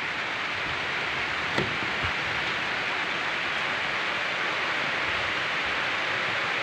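Steady hiss of rain, with two faint taps about one and a half and two seconds in.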